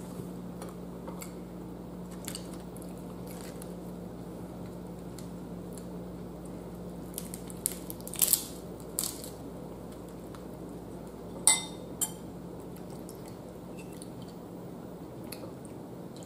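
Cooked blue crab shell being cracked and picked apart by hand. A handful of sharp cracks and clicks fall between about seven and twelve seconds in, over a steady low hum.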